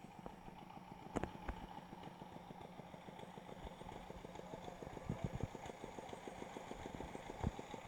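A small engine running steadily at low speed, with a fast, even ticking from about two seconds in.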